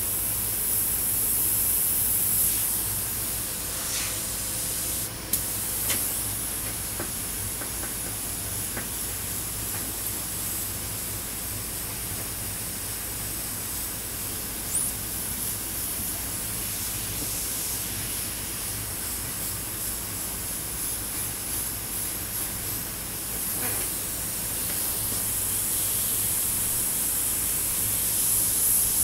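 Double-action suction-feed airbrush hissing as it sprays paint. The hiss is strongest at the start, drops lower through the middle and rises again over the last few seconds, with a couple of faint clicks along the way.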